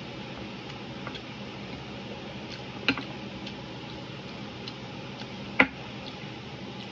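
Eating at a table by hand: two sharp clicks about two and a half seconds apart, the second louder, with a few faint ticks between, over a steady background hum.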